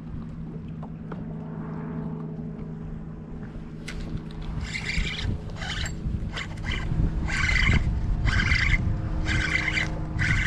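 Electric trolling motor humming steadily. From about halfway, a rapid series of short hissing rasps, one or two a second, comes in over the hum and grows louder.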